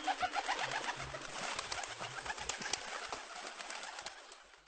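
Birds chirping in many short, rapid calls, fading out near the end.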